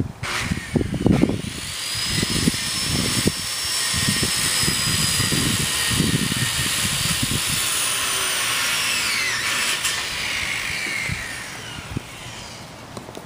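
A high-pitched motor, like a power tool, starts up and runs steadily, then winds down with its whine falling in pitch and fades out near the end. Low bumps and rustles sound under it during the first half.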